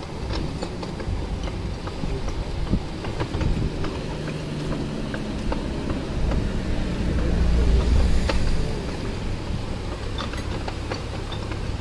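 Narrowboat's diesel engine idling steadily while the boat waits in a draining canal lock, with wind buffeting the microphone; the low rumble swells for a few seconds past the middle.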